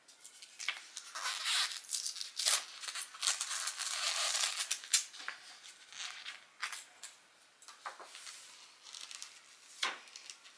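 Glossy paper prints and picture frames being handled: irregular rustling and scraping of paper, with light clicks and taps, busiest in the first half.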